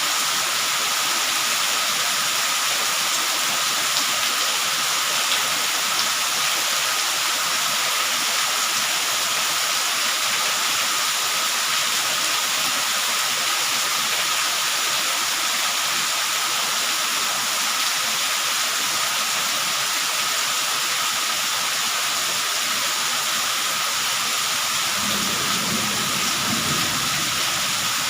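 Steady rain falling, a dense even hiss. Near the end a low rumble joins in.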